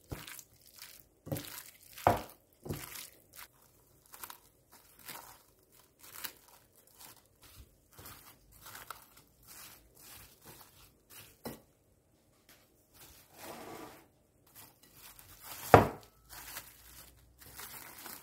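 Plastic cling film crinkling as it is handled over a bowl of raw chicken, in scattered sharp crackles, one much louder than the rest about three-quarters of the way through. At first, gloved hands squish the spiced chicken pieces in the bowl.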